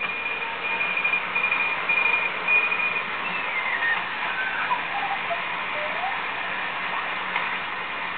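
Dancom R203 ship's shortwave receiver on a long-wire antenna, hissing with band noise around 3.56–3.59 MHz. At first a high tone keys on and off; then whistling tones glide down in pitch as the dial is tuned.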